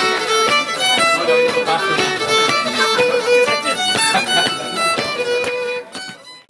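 Fiddle playing a lively tune in quick runs of short notes, dying away just before the end.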